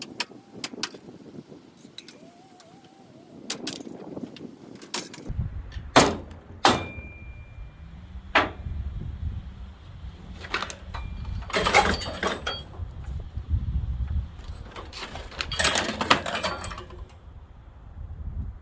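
Scattered metal clanks and knocks from parts of a farm machine being handled, with two longer rattling, scraping spells. A steady low rumble sets in about five seconds in.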